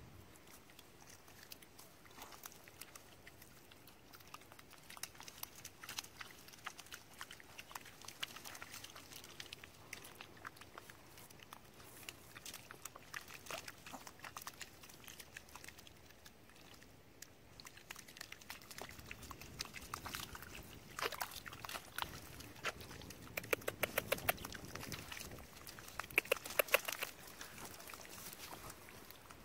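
Small pug-mix dogs sniffing and snorting as they nose through wet tidal mud, among scattered squelching, clicking steps in the mud. The sniffing grows louder and more frequent in the last third.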